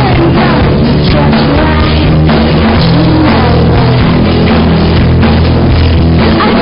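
Loud rock music with a steady bass line and a wavering vocal line.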